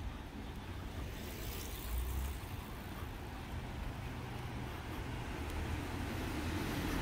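Outdoor vehicle noise: a steady low rumble that grows gradually louder toward the end, as a vehicle approaches.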